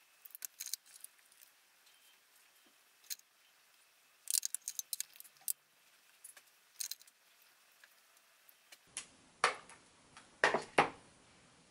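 Scattered faint clicks and taps of makeup tools and containers being handled while powder is brushed onto the face. About nine seconds in, louder knocks and rustles of handling set in.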